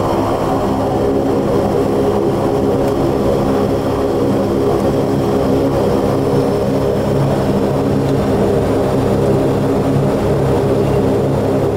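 Saab 340's twin General Electric CT7 turboprop engines and propellers running steadily while taxiing, a constant drone of layered hum tones heard inside the cockpit.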